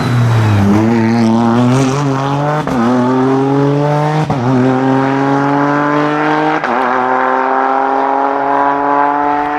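Rally car engine accelerating hard through the gears. Its note climbs and drops sharply at each of four upshifts about two seconds apart, each shift marked by a short crack, and the last gear pulls out slowly.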